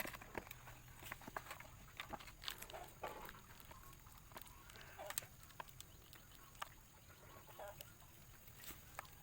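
Faint, short animal calls over scattered small clicks and taps.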